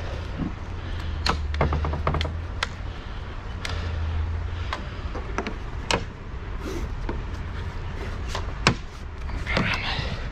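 Plastic trailer lighting board and its cord being handled and tied onto a truck's front grille: scattered clicks, knocks and a scrape near the end, over a steady low hum.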